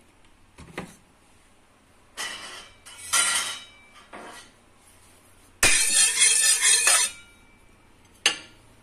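Kitchenware being handled: a pan on a gas stove and utensils clinking and clattering in short bursts, with one louder, longer rattle for over a second about two thirds of the way in and a sharp knock near the end.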